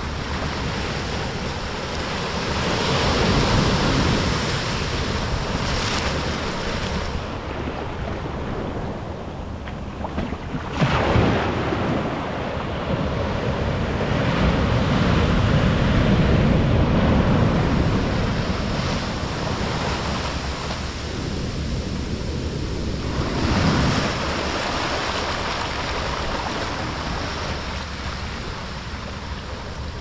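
Pacific Ocean surf breaking and washing up a sandy beach, rising and falling in swells. A wave breaks with a sudden crash about eleven seconds in, and the surf is loudest a few seconds after.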